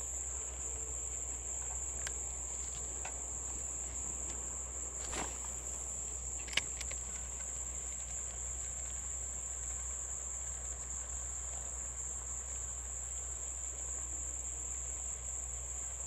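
Steady, high-pitched drone of an insect chorus in the streamside woods, with a few faint clicks, the sharpest about six and a half seconds in.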